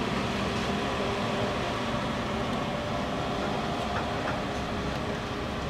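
Studio tour tram running steadily: a low engine hum and the rumble of its trailer cars rolling.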